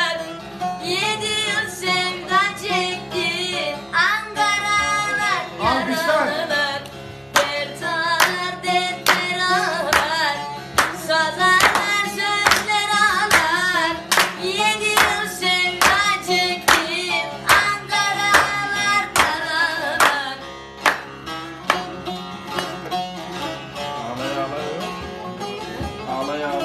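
A boy singing to a bağlama (saz) being strummed and plucked, with hands clapping along in the middle stretch. The voice drops out near the end while the bağlama plays on.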